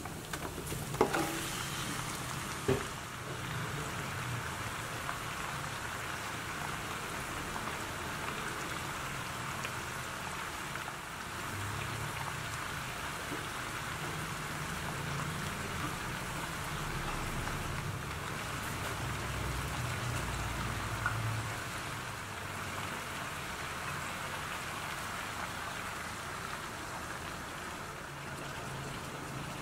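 Chicken pieces frying in hot oil in a stainless-steel pan: a steady sizzling hiss, with two sharp knocks in the first three seconds as the pieces are tipped in from a bowl.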